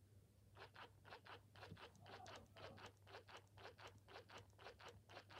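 Faint rapid clicking of the Amagami Ham Ham robot cat's nibbling mechanism working its jaw on a finger, about four to five soft clicks a second, settling into a steady rhythm about half a second in.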